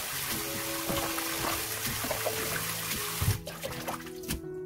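Tap water running into a basin of water while young radish greens are rinsed by hand. The water noise cuts off about three and a half seconds in, leaving a few light splashes and drips as the greens are lifted out. Background music plays throughout.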